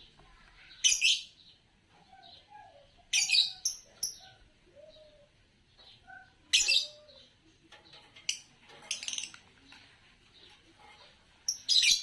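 A pair of green Fischer's lovebirds chirping: loud, sharp, high chirps every two or three seconds, with softer, lower chirps in between.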